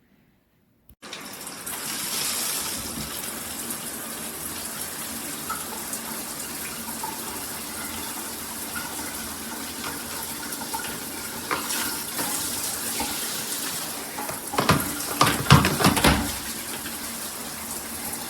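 Shower water spraying from a 2-in-1 handheld and rain shower head, starting suddenly about a second in as a steady hiss. Several louder knocks come near the end.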